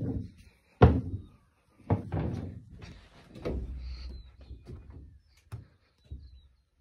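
Footsteps thudding on hollow wooden floorboards, with a sharp knock about a second in and several more scattered thuds after it.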